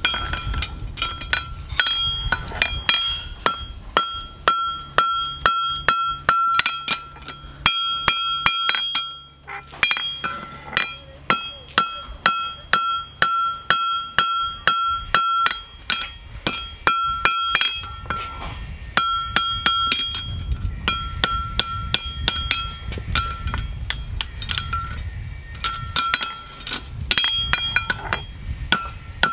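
Farrier's hammer striking steel in a long run of sharp blows, roughly one to two a second with short pauses. Each blow leaves a clear metallic ring.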